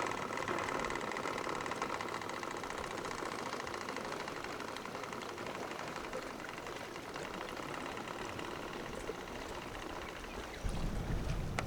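A boat engine running steadily at low revs, with a fine rapid knock in its sound.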